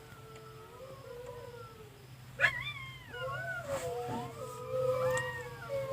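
Several drawn-out, wavering animal calls overlapping one another, with a louder call starting about two and a half seconds in.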